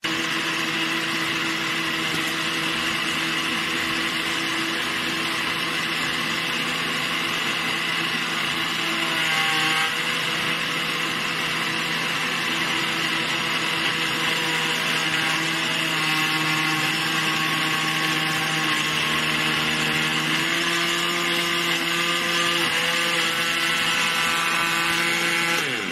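NewFeiMall Cassius 300 W countertop blender running steadily, its motor whining as the blades chop solid chunks in the glass jug. The whine shifts in pitch around ten seconds in and again around twenty.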